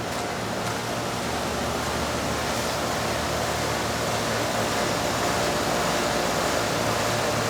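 Residential heat pump outdoor unit running: a steady rush of condenser fan air over a low hum, growing slightly louder.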